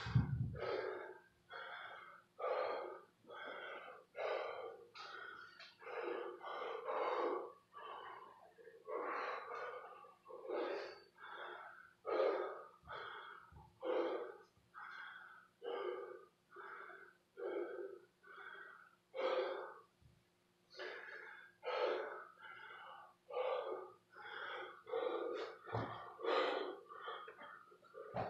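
A man breathing hard and rhythmically from exertion during kettlebell swings and burpees, with quick loud breaths a little more than one a second. A heavy thump comes right at the start, and two duller thumps come near the end.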